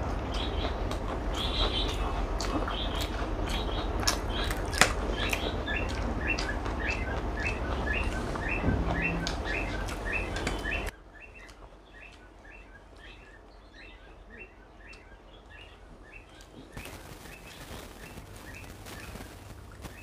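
A bird chirping in the background, a steady run of short repeated notes at about two or three a second, with small clicks of fingers working biryani rice on a plate. About eleven seconds in, the low background noise drops away suddenly while the chirping goes on.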